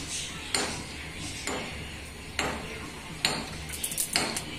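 Cooking oil trickling into a hot kadai, then heating in the pan with scattered sharp ticks and small pops, about one a second and a quick flurry near the end, over a low steady hum.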